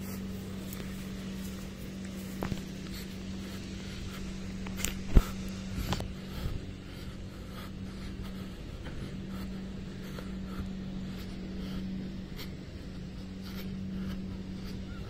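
Grass trimmer running at a steady pitch, one even drone, with a few sharp clicks over it, the loudest about five seconds in.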